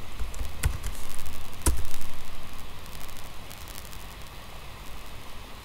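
Two sharp clicks about a second apart, over a steady low rumble and faint hiss of background noise.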